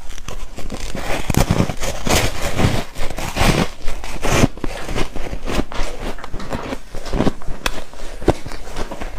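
Biting and chewing through a block of frozen coloured ice: dense crunching with many sharp cracks, heaviest in the first half, then sparser chewing crunches.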